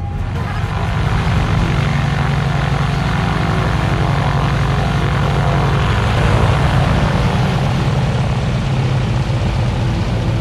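Propeller aircraft engine running: a steady, loud, low drone with a rough noisy edge.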